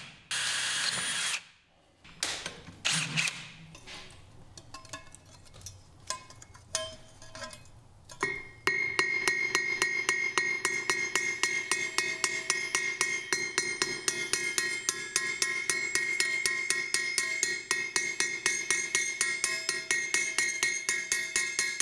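An electric drill runs for about a second at the start. From about nine seconds in, a small hammer peens copper rivets through a spatula's handle on a steel anvil in quick, even strikes, with a steady high ring from the struck metal.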